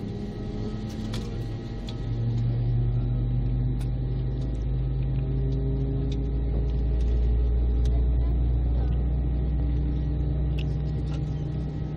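Steady low drone inside an airliner's cabin, with a few held tones over a rumble; it grows louder about two seconds in and then holds steady.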